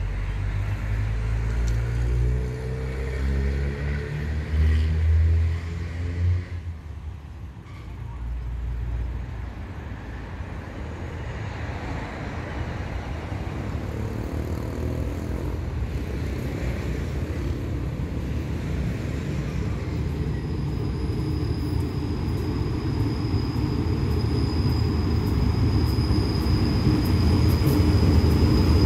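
A diesel locomotive hauling a passenger train approaches; its rumble grows steadily louder, and from about two-thirds of the way through a thin high squeal rides over it as the train slows to stop. In the first few seconds an engine changes pitch, loudest about five seconds in.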